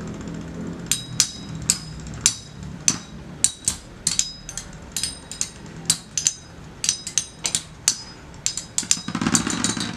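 Two metal-wheel Beyblade spinning tops, Lightning L-Drago and Aquario, clashing in a stadium. Sharp metallic clinks with a short ring come irregularly, a couple a second, and a louder rattling scrape follows near the end.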